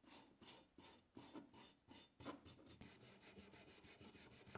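A hand scrubbing tool rubbed quickly back and forth over a heavily rusted steel socket wrench, scouring off the loose top layer of rust. The scraping strokes come about four a second and quicken to about six a second in the second half.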